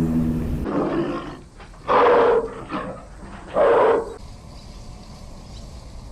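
An animal's low call trails off and cuts off, then an animal gives two short, loud, rough calls about a second and a half apart.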